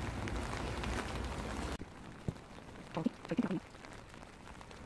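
Steady rain hiss with a low rumble, cutting off suddenly about two seconds in. After that it is quieter, with one sharp click and a few faint, short voice-like sounds.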